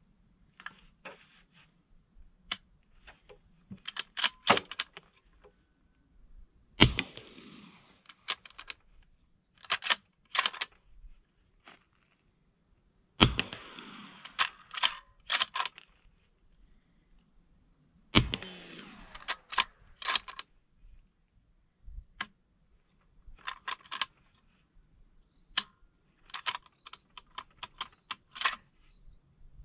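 Three suppressed shots from a Christensen Arms MPP bolt-action pistol in 300 Blackout firing subsonic rounds through a SilencerCo Hybrid 46, several seconds apart, each with a short trailing echo. Between the shots come clusters of metallic clicks and clacks as the bolt is worked; the pistol is suffering light primer strikes, so some rounds fail to fire.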